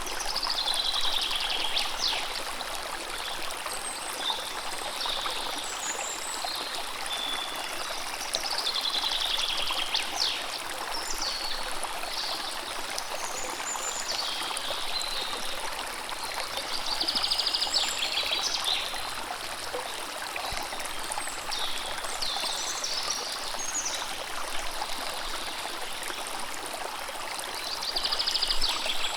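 River water running steadily, with several birds singing over it in short phrases and rapid trills.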